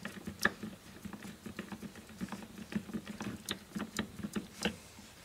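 Light, irregular clicks and small rustles of hands handling electrical wires against a plastic terminal block, tucking a spare live wire into an empty terminal slot.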